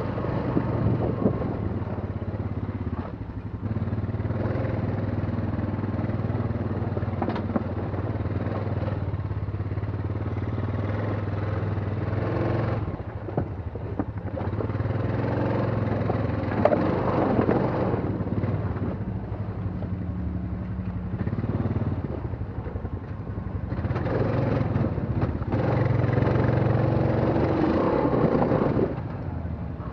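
ATV engine running at low speed over rocky ground, the throttle opening and easing off every few seconds, with a few sharp knocks.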